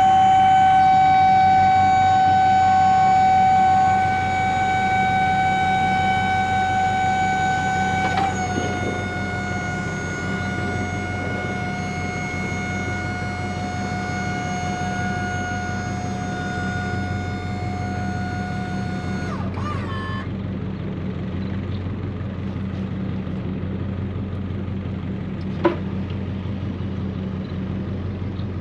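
Hand forklift's hydraulic lift pump motor whining steadily as it raises the forks. Its pitch drops slightly about eight seconds in, and the whine stops about twenty seconds in, leaving a low steady hum, with one sharp click near the end.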